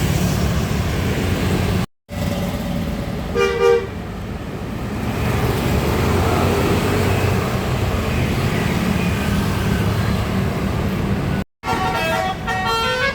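Road traffic with bus engines running, a short two-note horn toot about three and a half seconds in, and near the end a bus's basuri telolet horn playing a quick tune of changing notes.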